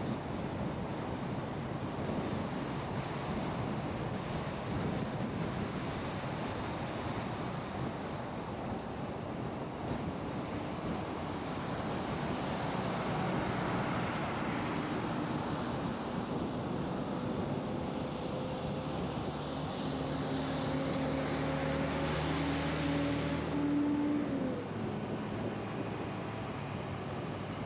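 Steady road and wind noise of a car driving at highway speed. A low engine drone comes in partway through, and a louder swell of road noise builds about three-quarters of the way in, then drops away.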